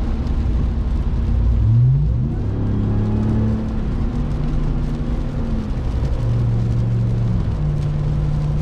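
2021 RAM 1500 TRX's supercharged 6.2-litre Hemi V8 heard from the cab while driving. It revs up about two seconds in, then runs steadily, its pitch stepping down and up a few times as speed changes in traffic.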